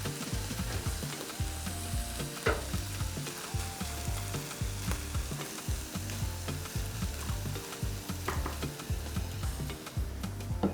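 Food frying in a hot pan, a steady sizzling hiss with a few light clicks.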